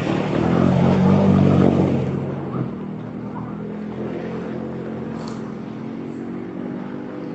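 A motor vehicle's engine running as it drives through fast-flowing floodwater, with rushing water underneath. The engine is loudest in the first couple of seconds, then fades as the vehicle moves away.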